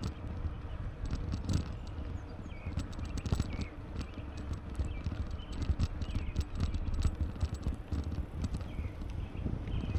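Bicycle riding noise: wind rumbling on the microphone, with irregular clicks and knocks from the bike rolling and rattling over the trail.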